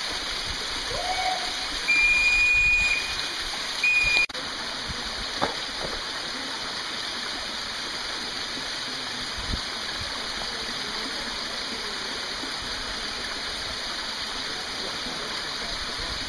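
Steady rush of a tall canyon waterfall. Early on, two loud, high, steady tones break over it: one lasting about a second, starting two seconds in, and a shorter one at about four seconds.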